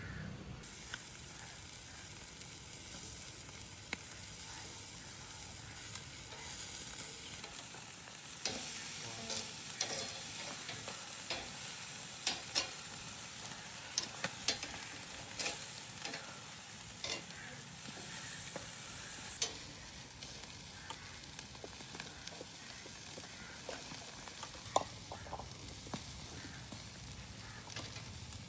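Food frying and sizzling in a pot, a steady hiss, with the clicks and scrapes of a spoon stirring, mostly in the middle stretch.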